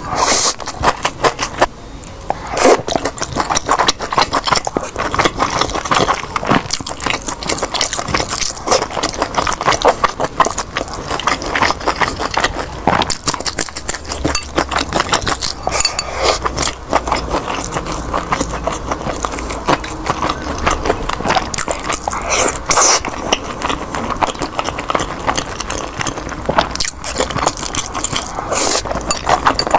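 Close-miked eating sounds: a person chewing and biting food, with a dense run of crisp clicks and crackles.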